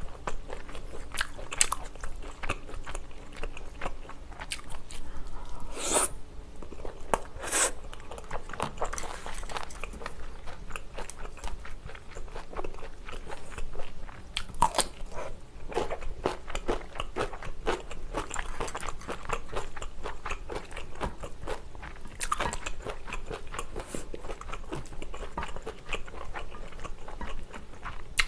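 Close-miked chewing of stir-fried pork tripe (gopchang) and sundae: a steady run of wet, sticky mouth clicks and chews. Two louder crunches come about six and seven and a half seconds in.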